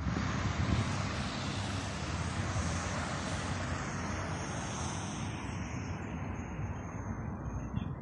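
Rushing noise of a passing vehicle, loudest at first and fading gradually over several seconds as its hiss dies away.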